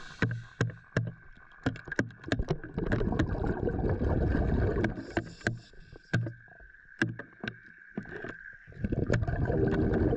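Underwater sound of a scuba diver breathing out through the regulator: long rumbling bursts of exhaled bubbles, from about 3 s in and again near the end, among scattered sharp clicks and a faint steady whine.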